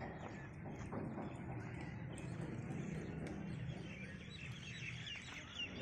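Faint birds chirping and calling in short scattered notes, over a low steady background rumble.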